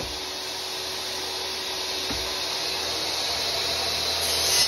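DeWalt miter saw running steadily and cutting through a pine block, the sound growing louder toward the end as the blade goes down into the wood.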